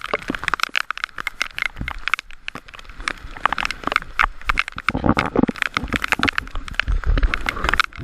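Strong wind and spray at sea striking the microphone: dense, irregular crackling and tapping throughout, with gusts of low buffeting from about five seconds in.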